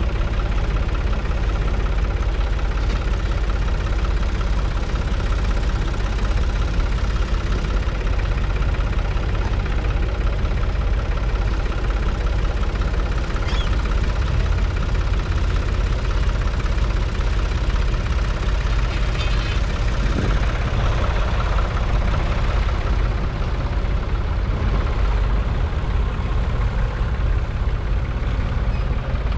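1971 Ford 4000's 3.3-litre three-cylinder diesel engine running steadily at an even pitch.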